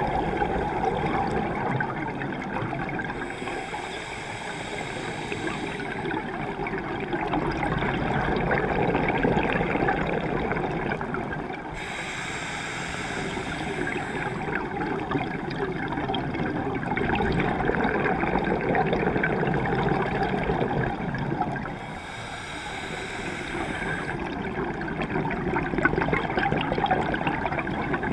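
A scuba diver breathing underwater through a regulator: a gurgling rush of exhaled bubbles comes three times, about every nine or ten seconds, over steady muffled water noise.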